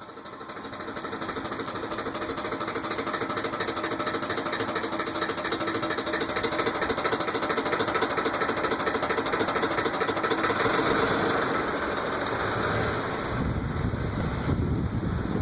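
Ford F-150 engine running with a fast, even knock that the owner suspects may be rod knock. A deeper rumble joins near the end.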